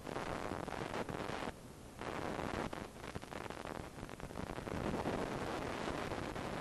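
Honda CG 160 Fan single-cylinder engine pulling under throttle while riding, a loud intake roar with the air-box snorkel removed; the throttle eases off briefly about a second and a half in, then the roar returns.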